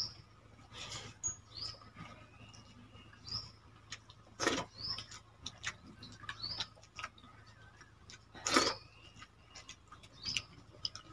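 Wet eating sounds of hands working water-soaked rice in steel bowls, with chewing and two louder slurps about four and a half and eight and a half seconds in. Short high chirps recur about once a second throughout.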